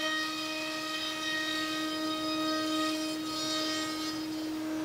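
HSD spindle on a ShopSabre CNC router whining steadily as it routes pre-finished maple plywood, with a hiss of cutting and dust-collection airflow that rises and falls over it.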